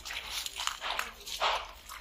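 Bare feet wading through shallow pond water, each step splashing and sloshing, several steps in quick succession with the loudest about one and a half seconds in.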